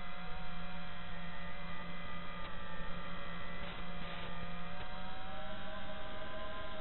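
Brushless motors and propellers of a 4S FPV quadcopter whining in flight, picked up by the onboard DVR's microphone with a narrow, thin sound. The whine holds fairly steady, dipping slightly in pitch about five seconds in, over a steady low hum.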